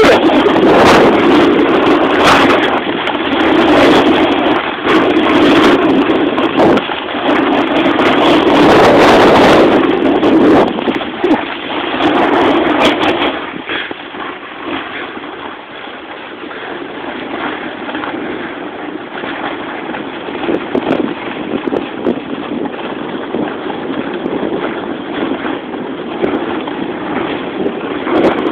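Wind buffeting the microphone over the hiss and scrape of sliding on snow during a snowboard run. It is loud and crackly for about the first half, then quieter and steadier.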